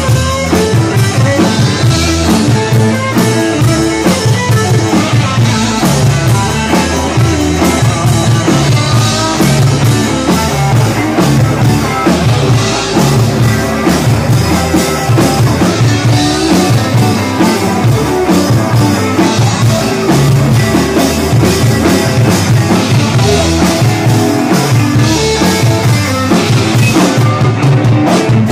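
Live rock band playing loud: distorted electric guitars over a steady drum-kit beat.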